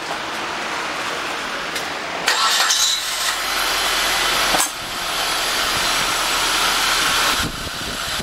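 A Nissan Altima's freshly swapped-in engine cranked on the starter about two seconds in, catching and settling into a steady run.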